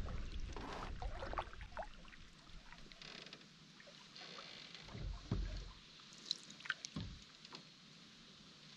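Canoe being paddled: light splashing and dripping of water around the paddle, with scattered small clicks and a few low knocks against the hull, the loudest about five and seven seconds in.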